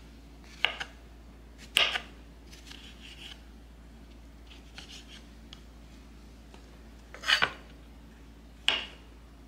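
Kitchen knife slicing fresh white mushrooms on a wooden cutting board: four sharp knocks of the blade striking the board, two in the first two seconds and two more late on, with faint scraping between.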